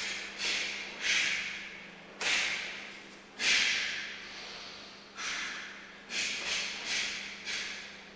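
Karate kata: about nine sharp bursts with the strikes and blocks, the karateka's cotton gi snapping and his breath forced out hard. Each burst cuts in suddenly and fades, with several coming in quick succession in the second half.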